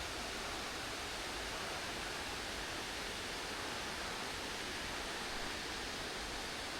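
Steady rushing of fast-flowing water, an even hiss with no breaks.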